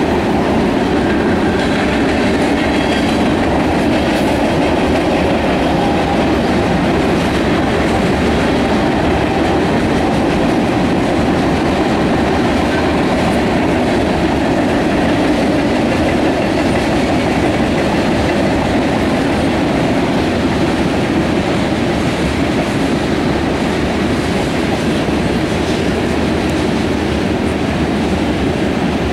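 Freight cars of a long CSX freight train rolling past, covered hoppers and then tank cars: a steady, even rumble of steel wheels running on the rails.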